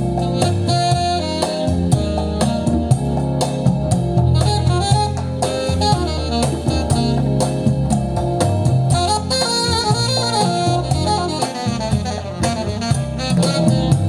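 Jazz with saxophone and drums playing through a pair of hi-fi loudspeakers driven by the NFS225 prototype amplifier, heard in the room.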